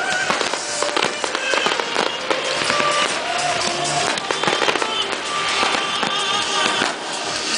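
Fireworks display: aerial shells launching and bursting in a dense, continuous run of bangs and crackles, with music playing along.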